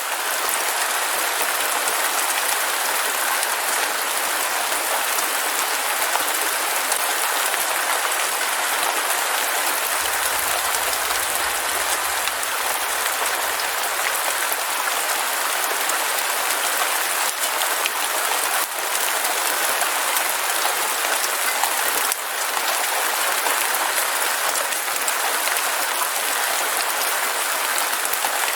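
Heavy rain falling steadily, a dense even hiss of drops on hard surfaces.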